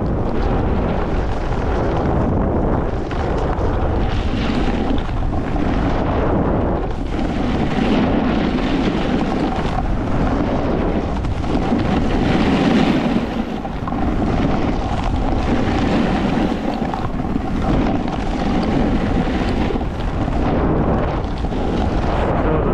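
Wind buffeting the microphone mixed with a snowboard scraping and hissing over packed, tracked snow during a fast descent, the rush swelling and easing every couple of seconds.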